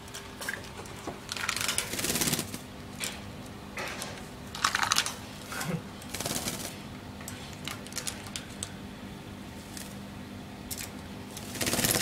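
Pet mynah bird bathing in its cage's water cup: irregular bursts of splashing and wing-fluttering, with scattered sharp clicks in between.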